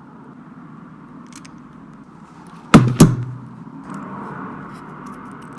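Two sharp metal clacks a quarter second apart, about halfway through, from a Knipex pliers wrench and vintage ratchet parts being handled on the bench, with a few faint ticks near the end.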